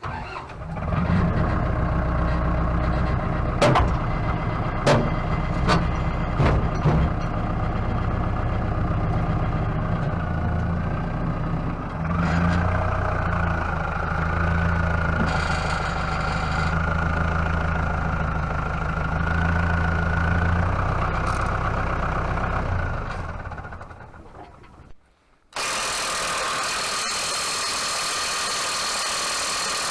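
An engine running steadily, with a few sharp clicks early on and a higher whine over the middle stretch, fading out after about twenty-three seconds. Near the end comes a loud, steady hiss.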